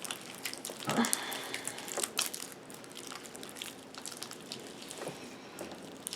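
Sticky, freshly activated glue slime being kneaded by hand, giving faint squishing with scattered small clicks and crackles.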